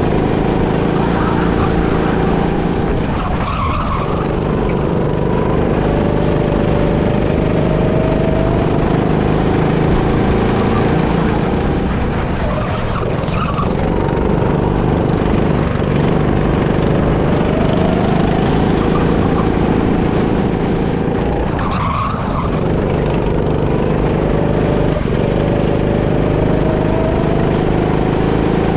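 Onboard sound of a go-kart driven at speed, its motor note rising along the straights and dropping into the corners, with short tyre squeals in the turns about three times.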